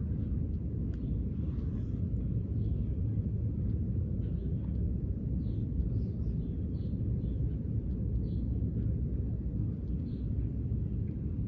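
Steady low outdoor rumble, with faint, brief chirps of small birds scattered over it.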